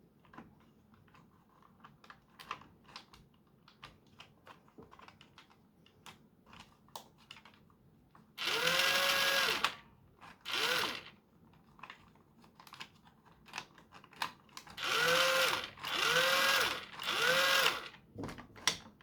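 Battery-powered Nerf Gatling blaster's small electric motor whirring in five short bursts, each spinning up and winding down, about eight seconds in and again near the end. Before and between the bursts come light clicks of plastic parts and switches being handled.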